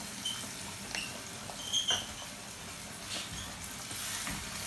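Diced carrots and capsicum frying in oil in a metal pan, a steady sizzle with a few short, high squeaky chirps. A wooden spatula starts stirring them near the end.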